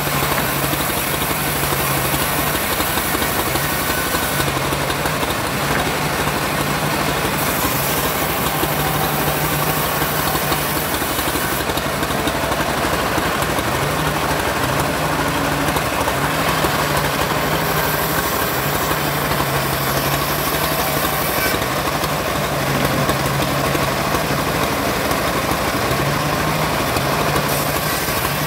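Homemade bandsaw mill running without a break while sawing sengon wood: a low hum from its drive, shifting slightly in pitch, under a steady hiss of the blade.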